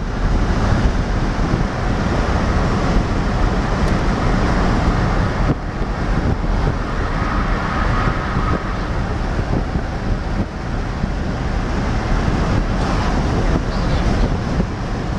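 A moving vehicle's road and wind noise, heard from inside the cab: a steady rushing with heavy low buffeting of wind on the microphone.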